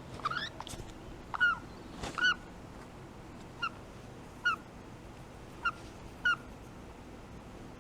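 A baby yellow-sided green-cheeked conure calling: about nine short, hooked chirps at uneven intervals, a few of them close together.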